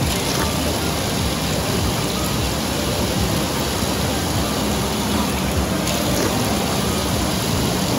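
Running water: a steady, close rush of flowing water with no let-up.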